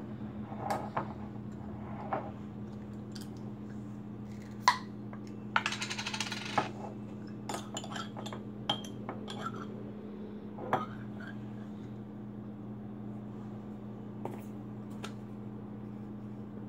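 Metal spoon clinking and scraping in a small glass baby-food jar: scattered light clinks, with a short busier rattle about six seconds in, over a steady low hum.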